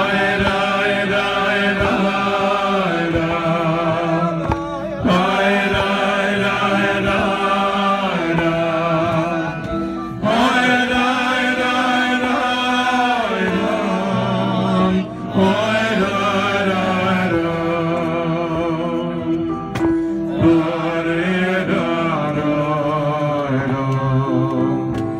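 A man singing a slow Hasidic melody into a microphone, his voice wavering on long held notes, in phrases broken by short breaths about every five seconds.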